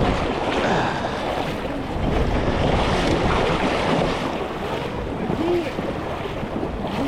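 River water rushing steadily, with wind buffeting the microphone in uneven low gusts.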